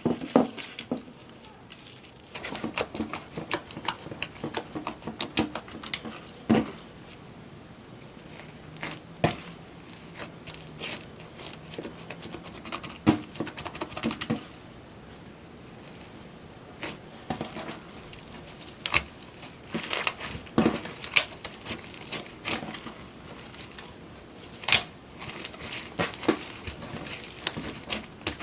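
Slime mixed with foam beads being squeezed and kneaded by hand, giving irregular crackling and sharp popping clicks.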